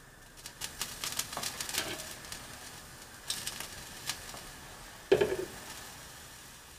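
Metal tongs clicking and scraping against a stainless wire fry basket as mushroom pieces are laid in over an open gas flame, with light crackling. About five seconds in comes one louder metal clank.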